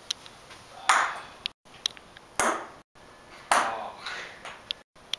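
Three sharp knocks, each with a short ringing tail, about a second in, near two and a half seconds and, loudest, near three and a half seconds, with a few faint ticks between. The sound drops out completely for an instant several times.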